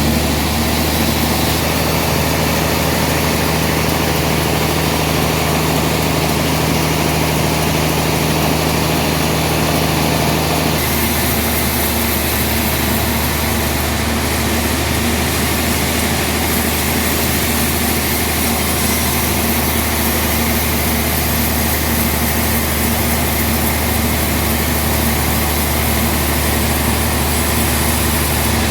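Sawmill machinery running steadily with a constant engine drone, its tone shifting abruptly about eleven seconds in.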